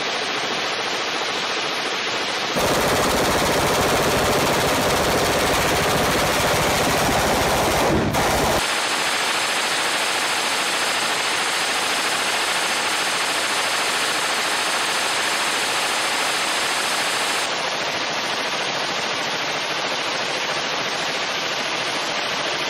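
Suppressed belt-fed light machine gun firing long sustained full-auto bursts, enough to heat the suppressor red-hot. The sound changes abruptly three times: about two and a half seconds in it gets louder and fuller, and at about eight and a half seconds and about seventeen and a half seconds it shifts again.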